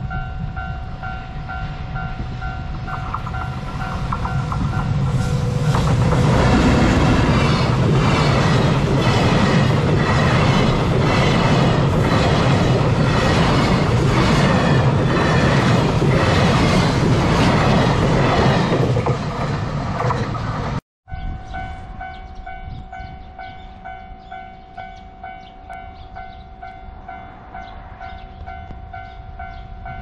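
Japanese level-crossing warning bell ringing as a container freight train hauled by an EF210 electric locomotive passes over the crossing, its wheels clattering in a regular rhythm over the rail joints for about fifteen seconds. After an abrupt cut, the crossing bell rings on alone as the crossing is activated for the next train.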